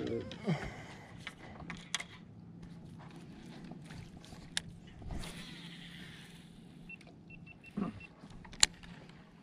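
Low steady hum of a small electric motor, with scattered light clicks and knocks, a brief hiss about five seconds in, and a short run of faint high beeps near the end.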